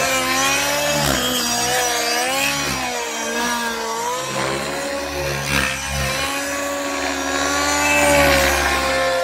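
Nitro-engined radio-controlled helicopter flying aerobatics: the high-pitched glow engine and rotor whine rise and fall in pitch over and over as it flips and banks.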